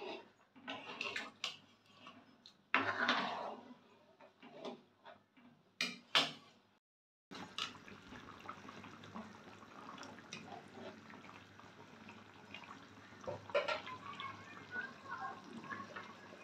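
A metal spoon scrapes and knocks against a metal kadai as it stirs chicken curry, with two sharp knocks about six seconds in. After a brief break, the thick curry simmers with a steady low bubbling and small pops.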